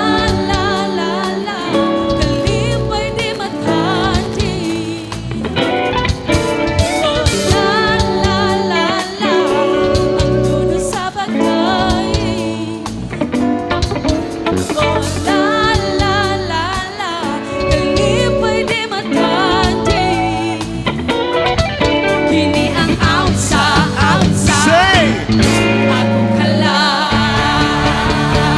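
Worship band playing a song, with a singer over guitar, sustained bass notes and regular drum hits.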